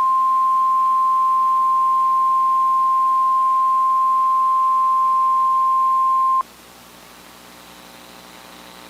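NOAA Weather Radio's 1050 Hz warning alarm tone: one steady, single-pitched beep that cuts off suddenly about six and a half seconds in, leaving a faint radio hiss and hum.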